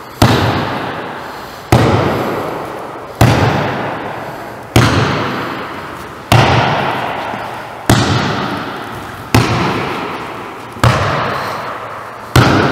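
Volleyball struck again and again with two-handed forearm passes (bumps), nine sharp smacks about every second and a half, each followed by a long echo through the hall.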